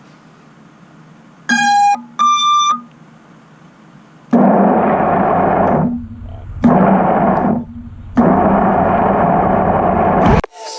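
Two short electronic beeps, the second higher than the first, like a device powering on, followed by three loud bursts of hiss that start and stop abruptly over a low hum.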